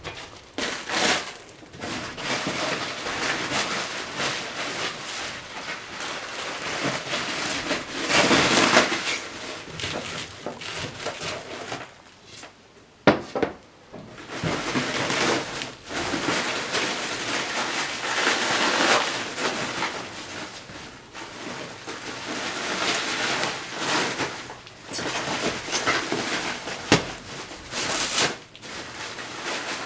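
Packaging rustling and crinkling as it is handled, with a sharp knock about thirteen seconds in and another near the end.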